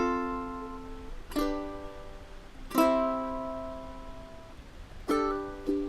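Background music: chords strummed on a plucked string instrument, each left to ring out and fade, about one every second and a half, with quicker strumming starting near the end.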